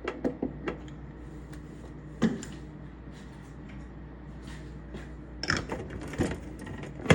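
Lid being put on and screwed onto a jar, giving a few small clicks and knocks. The sharpest comes about two seconds in and a cluster follows near the end, over a steady low hum.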